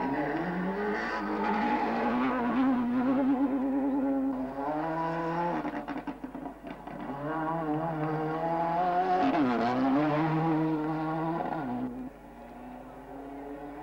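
Rally cars at full throttle on a gravel stage, one after another: a SEAT Ibiza kit car, then a Ford Escort WRC. Each engine's pitch climbs and drops sharply with the gearchanges and throttle lifts. A quieter car follows near the end.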